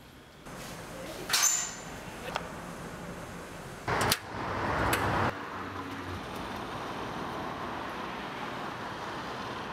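A few sharp metallic clanks, the loudest about four seconds in as an iron street gate is opened. Then steady city street traffic noise.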